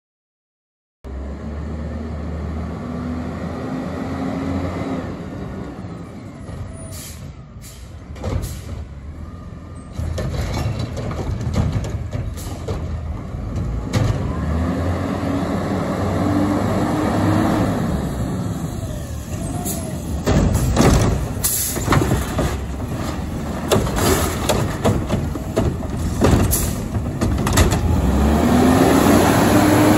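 Autocar ACX garbage truck with a McNeilus Meridian front-loader body running a recycling route: its engine rumbles and revs up three times with a rising pitch, while air brakes hiss and the body and cart grabber clank sharply several times.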